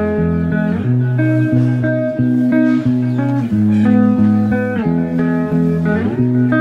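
Background music: a plucked guitar playing a steady run of notes.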